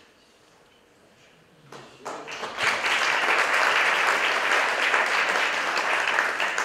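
Audience applause breaking out about two seconds in and quickly building to a steady level.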